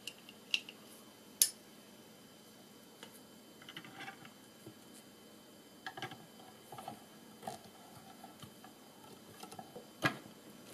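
Scattered light metallic clicks and taps of an open-end wrench and water-pump pliers on two nuts on a threaded rod, as the nuts are tightened against each other to lock them. The clicks are sparse and irregular, a few seconds apart, with a sharper one about a second and a half in and another near the end.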